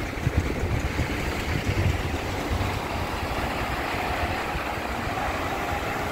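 Volvo diesel city bus engine running with a steady low rumble; a faint whine comes in about halfway through.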